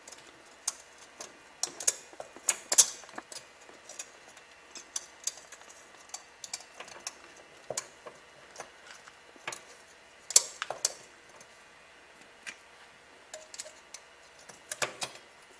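Irregular light metallic clicks and taps of automatic-transmission parts (snap ring, clutch pack pieces and drums) being handled and fitted during reassembly, a few louder knocks among them.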